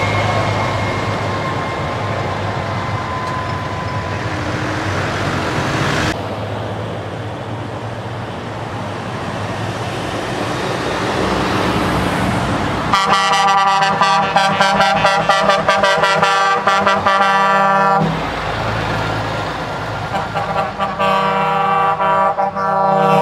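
Heavy trucks' diesel engines running, then a truck horn blowing a loud, steady multi-note chord for about five seconds starting about halfway through, and again in the last couple of seconds.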